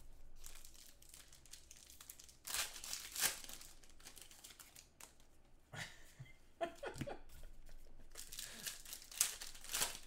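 Trading-card pack wrappers being torn open and crinkled, in three bursts of rustling a few seconds apart.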